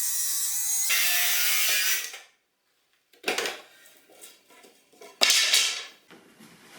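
A small power saw cutting along the edge of a wooden countertop, its whine turning rougher about a second in and then stopping after about two seconds. After that come a few separate knocks and rubbing sounds of wood being handled, the loudest a little past five seconds.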